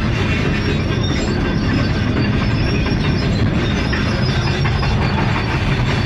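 Excavator running, a steady heavy mechanical rumble with metallic noise.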